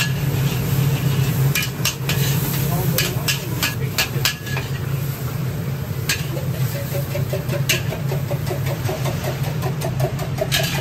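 A metal spatula and ladle scrape and clank against a wok as Hokkien noodles are stir-fried in their broth, with many sharp strikes. Underneath is a steady low hum.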